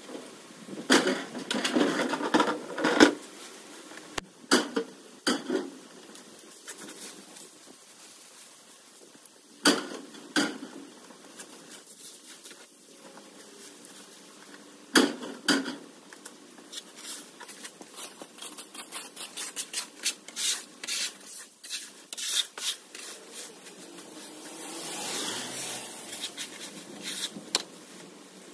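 Cut hedge waste being gathered and loaded: bursts of scraping and rubbing of branches, with a quicker run of clattering knocks in the second half.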